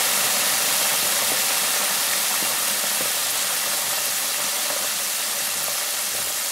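Food deep frying in an electric deep fryer: hot oil bubbling and sizzling in the wire basket as a steady, dense hiss that eases a little toward the end.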